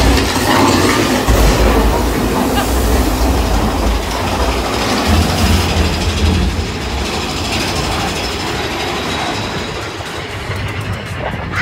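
Big Thunder Mountain Railroad mine-train roller coaster running along its track, a steady rumble and clatter of wheels on rail that gradually gets quieter toward the end.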